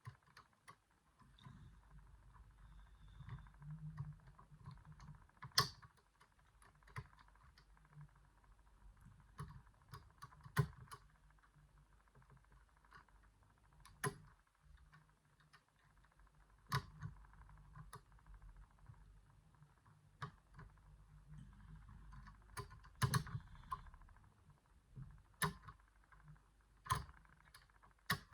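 Irregular faint metallic clicks and taps of an 8-lever safe lock being picked: a pipe pick lifting the levers against light tension, the levers catching on false gates. A few clicks are sharper than the rest.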